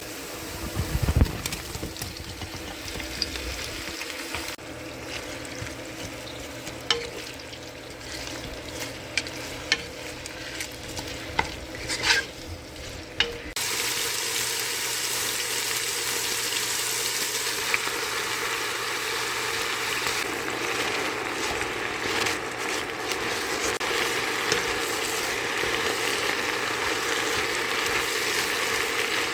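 Food frying in a pan: scattered clinks and knocks at first, then a steady sizzle that comes in about halfway through and keeps going.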